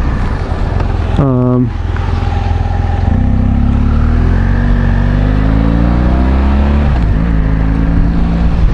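Motorcycle engine accelerating, its pitch rising steadily for about four seconds, then dropping at a gear change and running steady.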